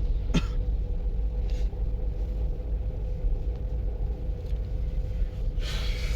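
Wind buffeting the microphone in a blizzard: a steady low rumble, with a brief hissing gust near the end.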